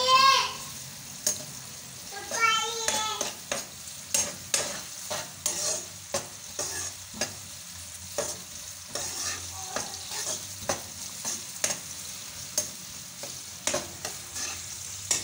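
Sliced onions frying in oil in a wok-style pan, sizzling steadily while a spatula stirs them, with frequent short clicks and scrapes of the spatula against the pan. Two brief high squeals, one right at the start and one about two and a half seconds in.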